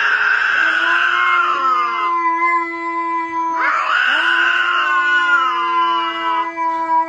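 An animal wails twice, each cry lasting two to three seconds and sliding down in pitch at its end, over steady held music notes.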